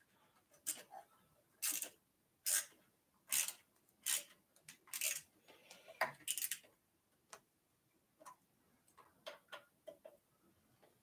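Sharp clicks and scrapes from hands working the fittings at an electric bike's handlebars: about one a second for the first six seconds, then fainter, scattered ticks.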